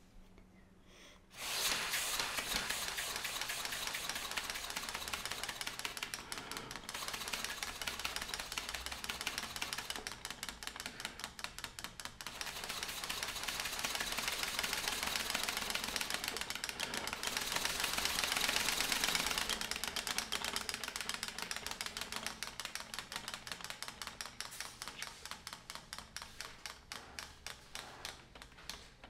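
Homemade plastic-syringe piston engine with a wire crank and CD flywheel, running on air blown into it through its tube: a rapid mechanical clatter of many clicks a second that thins out into separate, slower ticks near the end.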